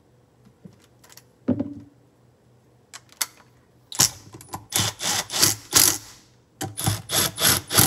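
Cordless power driver spinning bolts into the aluminium case of a Can-Am Smart-Lock front differential to hold the case halves together: a rapid rattling run about four seconds in, a short pause, then a second run near the end. A single knock comes about a second and a half in.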